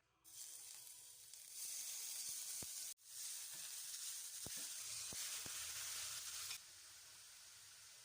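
Food sizzling in a hot pan: a steady frying hiss that grows louder about a second and a half in, breaks off for an instant about three seconds in, and eases down near the end.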